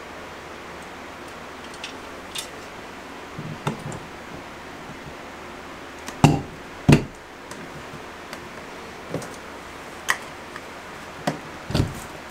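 Scattered clicks and knocks of a metal slip-on tub spout being pushed onto its copper pipe and seated against the shower wall, with two louder knocks close together about halfway through.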